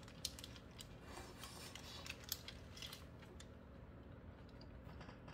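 A man chewing a big bite of hamburger: faint, soft mouth clicks and crackles, busiest in the first three seconds and then thinning out.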